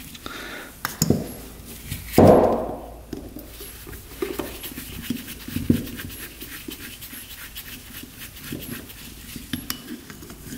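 A dog panting in a steady rhythm, with one loud breathy huff about two seconds in.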